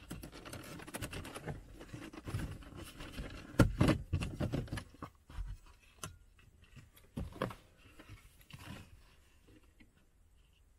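Aluminium trim ring around a car's manual gear-lever boot being pried loose: a run of scraping and clicking, with a sharp knock about three and a half seconds in and two lighter knocks later.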